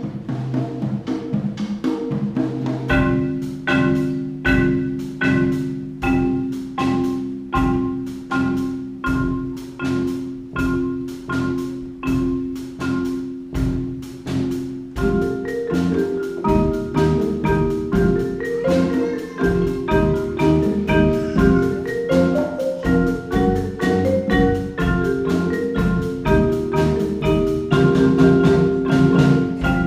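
Solo marimba played with mallets. A held low chord sounds under a high note struck about twice a second, then from about halfway a quicker melody of notes moves over the low notes.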